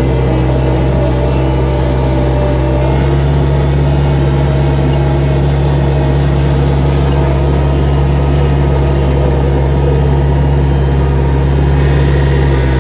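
Gehl skid steer's engine running steadily, a loud, even drone with no revving.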